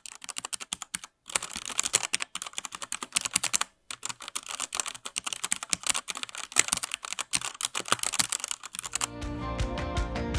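Rapid typing on a computer keyboard, a dense run of key clicks broken by two brief pauses in the first four seconds. Near the end the typing gives way to music.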